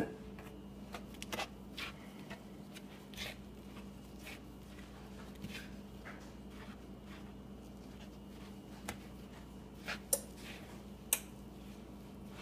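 Wooden spoon stirring whole wheat flour and oats into a creamed butter-and-sugar cookie dough in a plastic mixing bowl: faint scraping with scattered light taps of the spoon against the bowl, and two sharper knocks near the end.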